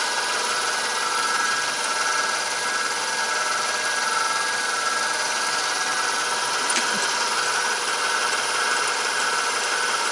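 Milling machine running steadily, its motor and drive giving a constant high whine, with a single short click about seven seconds in.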